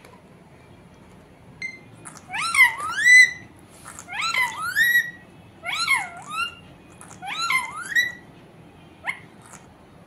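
Parakeet calling: four bouts of loud, meow-like squawks that glide up and down in pitch, each bout under a second long and about a second and a half apart, then one short call near the end.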